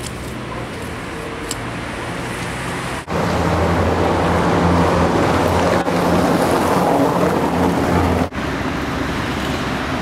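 Street traffic noise, with a vehicle engine running close by as a steady low hum through the middle; the sound jumps abruptly louder about three seconds in and drops back near the end.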